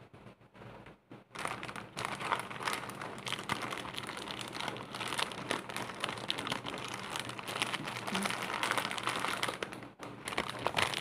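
Thin plastic cookie packet crinkling as it is folded and handled. The dense crackling starts about a second in and breaks off briefly near the end before picking up again.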